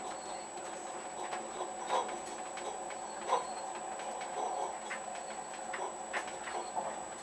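Inside a moving passenger train: a steady running hum with irregular light clicks and creaks, and a faint high steady whine.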